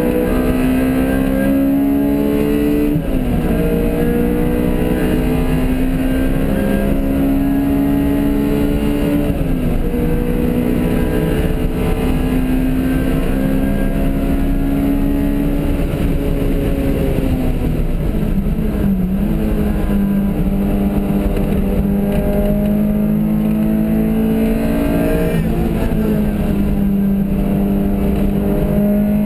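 Race car engine driven hard around a track, heard from inside the cabin. Its pitch climbs steadily under acceleration and falls back sharply about four times between climbs.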